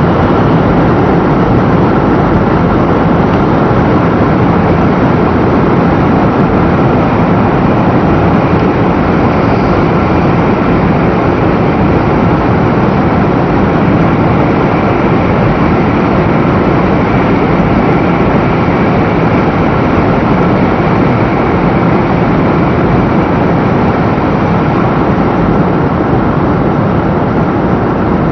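500 series Shinkansen running steadily at speed, heard from inside the car: a loud, even rumble and rushing noise with a faint steady high whine over it.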